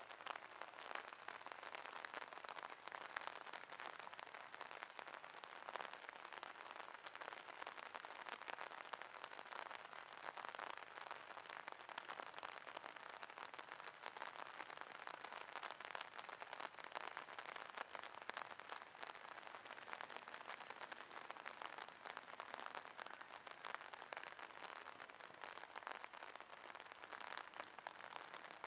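Steady rain falling, a faint dense patter of fine drops.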